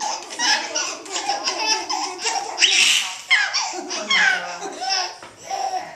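A baby laughing in a string of high-pitched peals, set off by a man nuzzling its chest, with a louder breathy squeal about three seconds in.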